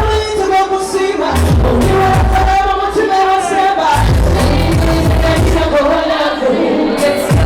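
Loud pop music: a singer's voice over a heavy bass beat.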